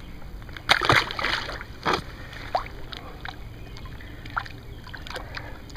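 Pond water splashing and sloshing as a large channel catfish is lowered into the shallows and held there by hand for release. The biggest splash comes about a second in, with a shorter one soon after, then small drips and light sloshing.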